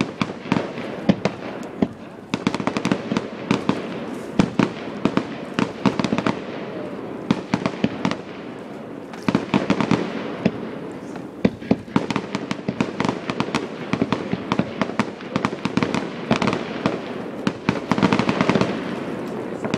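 Fireworks display: many sharp bangs in quick succession, with denser, louder flurries about halfway through and again near the end.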